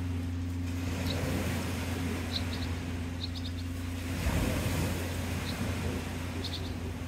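Plastic trimmer line and the trimmer's line spool being handled, with a brief rustle about four seconds in, over a steady low hum. A few short, faint high chirps come in small clusters of two to four.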